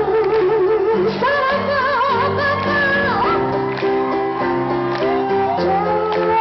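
Live pop band playing in a large hall, with sustained chords and a high sung line held with wide vibrato and no words.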